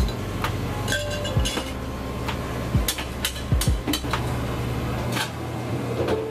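Clinks and knocks of glassware, metal pitchers and utensils being handled at a cafe counter, a scatter of sharp irregular taps over a steady low hum of equipment.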